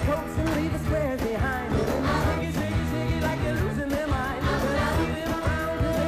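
Upbeat rock-and-roll song with a singing voice over a steady dance beat.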